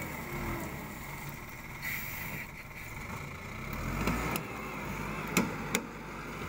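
LiuGong wheel loader's diesel engine running as the machine pushes soil with its bucket, briefly louder about four seconds in. Two sharp knocks sound a little after five seconds.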